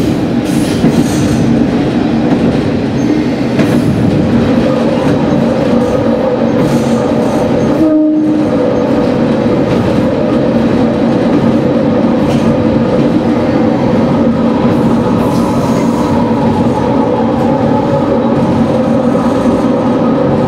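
Sanriku Railway diesel railcar running along the line, heard from the cab: a steady engine hum over continuous wheel-on-rail noise, with a momentary break about eight seconds in.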